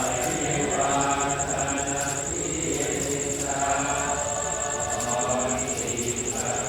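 A group of voices chanting together in a Buddhist ceremony, long held phrases of a couple of seconds each with brief breaths between.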